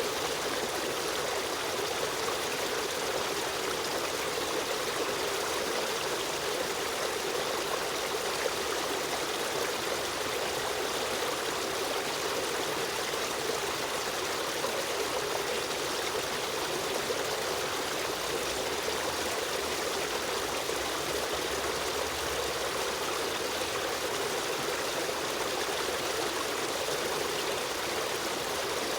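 Stream of running water flowing steadily, an even, continuous rush with a trickling edge.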